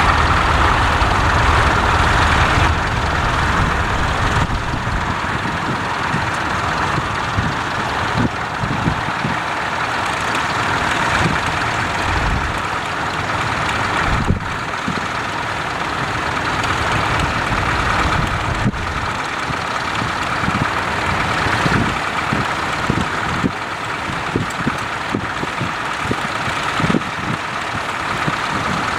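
Tractor engine running steadily, with a few brief knocks.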